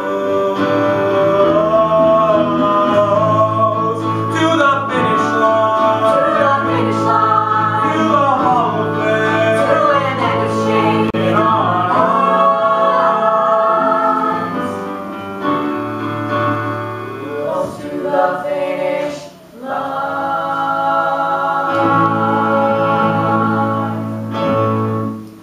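Several voices singing a musical-theatre song together with instrumental accompaniment, holding long notes over steady bass notes. The music dips briefly about two-thirds through and stops just before the end.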